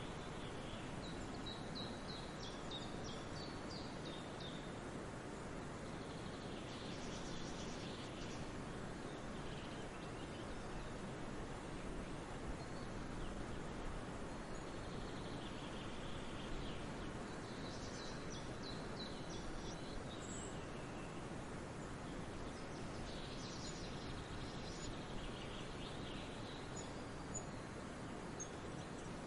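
Steady outdoor background noise with birds chirping in short clusters every few seconds.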